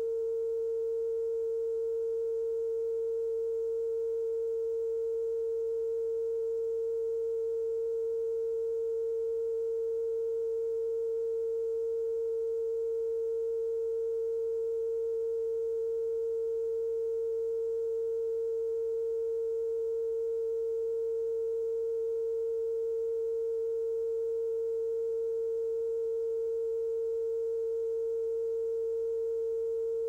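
Television station test tone played over colour bars after sign-off: a single steady, unbroken mid-pitched tone with faint overtones.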